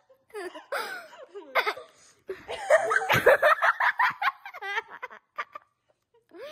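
A person laughing in a string of breathy giggling bursts that trail off near the end.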